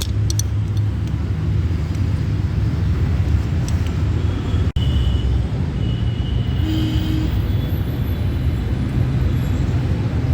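Steady low rumble of road traffic, with a few faint clicks near the start.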